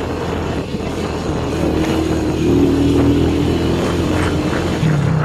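Motorcycle engine running while it is ridden over a steep, rough concrete road. The engine note grows louder and stronger about two seconds in, then eases off.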